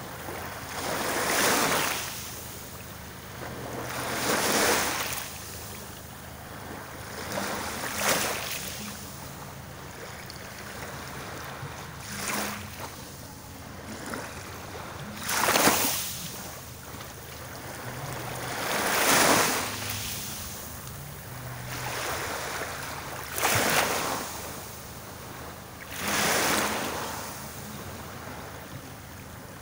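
Small sea waves washing onto the shore, each one swelling and falling away every three to four seconds, under a faint steady low hum.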